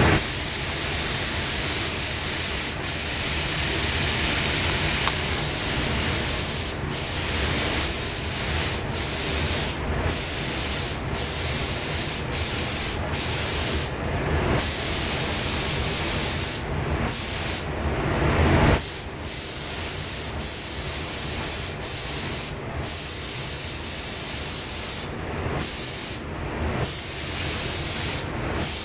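Compressed-air paint spray gun hissing steadily as motorcycle fairing parts are sprayed, the hiss broken by many short gaps. A low steady rumble underneath cuts off suddenly about two-thirds of the way through.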